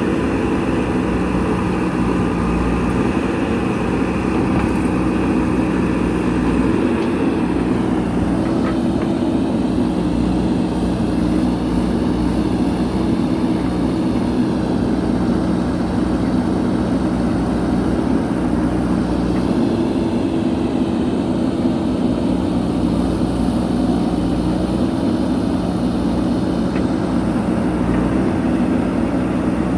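JCB backhoe loader's diesel engine running steadily under work, its engine note shifting up and down a little now and then.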